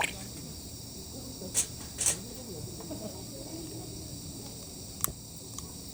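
Steady chorus of night insects such as crickets, with a few sharp clicks or pops about a second and a half in, at two seconds, and near the end.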